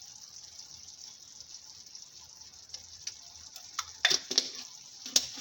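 Meat and onions sizzling steadily in a tagine. Several sharp clinks and knocks join in from about three and a half seconds in.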